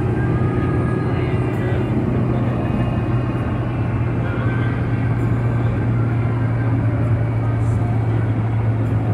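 Steady engine drone and road noise heard from inside a moving passenger shuttle vehicle at highway speed, with a low hum that holds level throughout.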